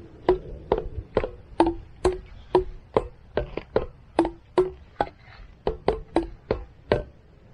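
Large outdoor xylophone struck with two mallets, playing a run of short notes at changing pitches, about two a second, each with a brief ring.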